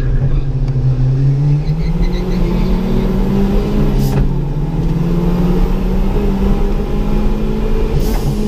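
A Ford Ka's engine being driven hard on track; its note climbs a couple of seconds in and then holds steady, with two short sharp clicks about four and eight seconds in.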